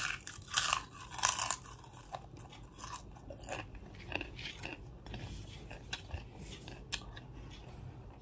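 A person biting into a crunchy white piece and chewing it: three loud crunches in the first second and a half, then softer, scattered crunching as it is chewed down.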